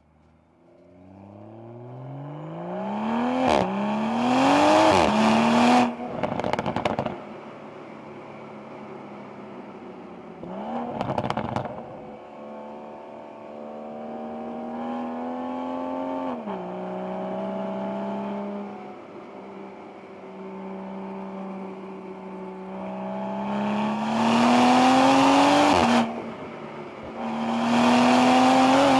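The stock turbocharged B58 inline-six of a 2021 Toyota Supra 3.0 accelerating hard. Its pitch rises and drops back at each upshift, and a burst of exhaust crackling comes about six seconds in as the power comes off. It then runs steadily at part throttle before two more loud rising pulls near the end.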